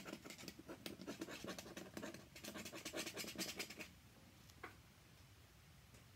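A dip-pen nib scratching across paper in quick short strokes for about four seconds, then stopping; a soft click follows.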